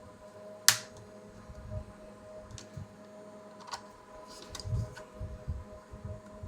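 Small clicks and light knocks of hands and tools working the carbon brushes out of a vacuum cleaner's motor, the loudest a sharp click just under a second in.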